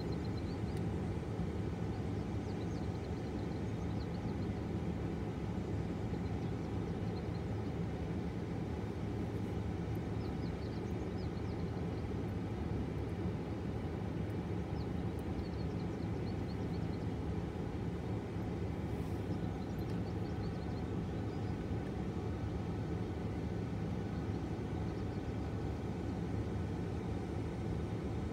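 Steady low rumble of a freight train of autorack cars rolling past, unbroken and even in level, with faint high chirps now and then.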